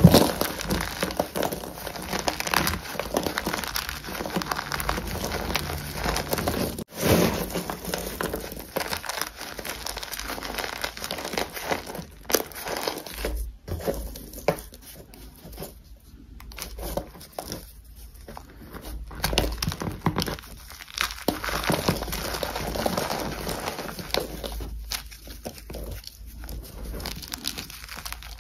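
Blocks of gym chalk being squeezed and crushed in the hand, crumbling into powder: a dense crackly crunching made of many small crumbles. It is softer and more broken up for a stretch in the middle.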